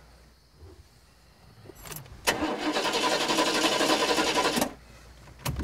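A car's engine is turned over by its starter for a couple of seconds after a click of the key, then stops abruptly without settling into an idle. Near the end it is cranked again.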